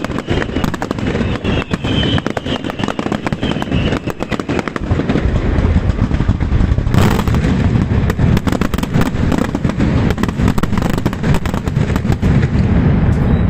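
Aerial fireworks display: rapid crackling and banging shells, building from about five seconds in to a denser, heavier barrage with a deep rumble.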